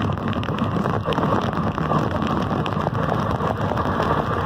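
Toro riding lawn mower's Kohler 7000 series engine running steadily as the mower drives across the lawn.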